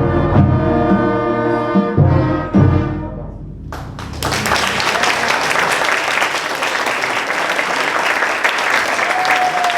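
A beginning school concert band of wind instruments and percussion plays its last few accented notes and a held chord, which dies away about three seconds in. About a second later the audience breaks into steady applause.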